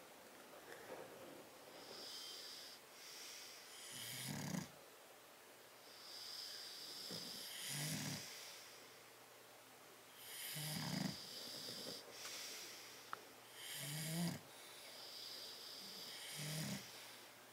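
Sleeping bulldog snoring: five low, rattling snores about three seconds apart, with a hissing breath between each.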